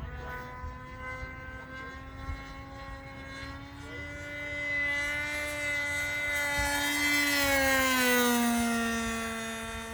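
Glow-fuel engine of a radio-controlled P-51 Mustang model in flight: a steady buzz that grows louder over a few seconds as the plane comes closer, then drops in pitch as it passes by and gets a little quieter.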